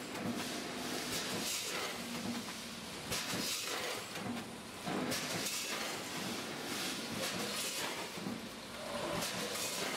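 Vertical form-fill-seal packing machine running, its film-pull belts and sealing jaws cycling as it forms, fills and seals bags of macaroni. A steady mechanical noise with repeated short knocks.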